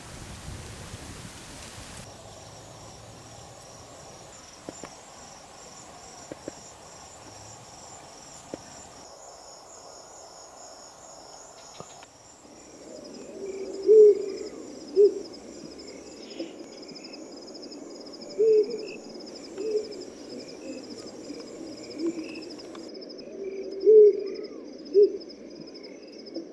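Night insects trilling steadily in the bush. From about halfway through, a bird gives loud, low hoots, mostly in pairs about a second apart, three times over.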